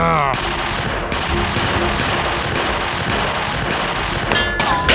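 Edited-in sound effect: a steady, loud rushing noise with a faint regular knock about twice a second, ending in a short bright ding near the end.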